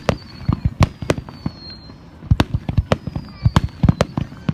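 Fireworks display going off: a rapid, irregular run of sharp bangs and crackles, several a second, easing briefly about two seconds in before picking up again.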